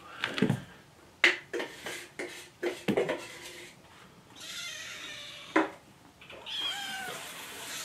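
Several small kittens meowing insistently, begging to be fed, with sharp clicks and knocks in between. A steady rushing hiss starts near the end.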